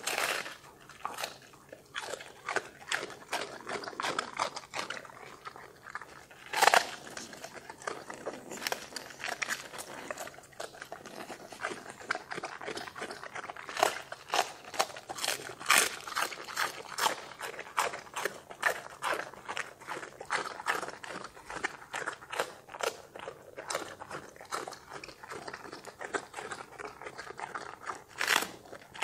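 A Doberman chewing raw green vegetable pieces: steady, irregular wet crunching and clicks of teeth, with a couple of louder crunches.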